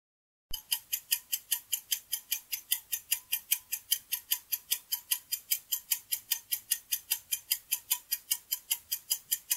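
Clock-ticking sound effect marking a quiz's answer countdown timer: even, sharp ticks at about four a second, starting about half a second in.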